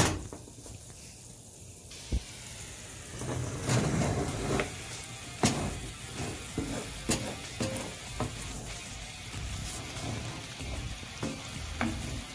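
Mushroom and bourbon sauce bubbling and sizzling as it reduces on high heat in a cast-iron skillet, stirred with a wooden spoon that gives a few sharp knocks against the pan.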